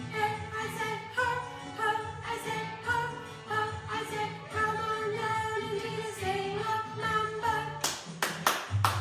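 Recorded song track playing, with a sung melody over a steady accompaniment. About eight seconds in, a run of sharp percussion hits starts.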